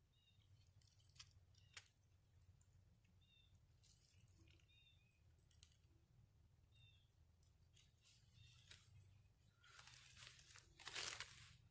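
Near-silent outdoor quiet with a small bird giving short two-note chirps now and then, a couple of faint clicks early on, and a burst of rustling near the end as a man stands up from a crouch on the bank.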